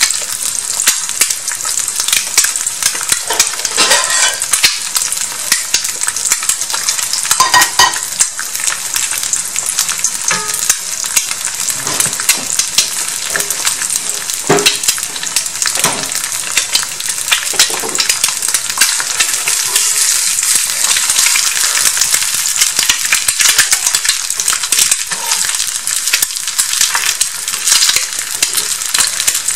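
An egg frying in hot oil in a small skillet: steady sizzling with dense, fast crackling spatters.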